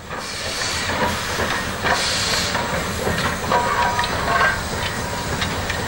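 Indian Railways steam locomotive moving slowly past, steam hissing steadily, with a few short clanks from the running gear.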